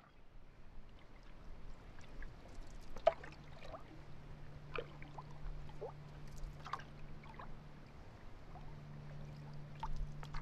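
Faint dripping and trickling water, with scattered small plops that drop quickly in pitch. A low steady hum lies underneath.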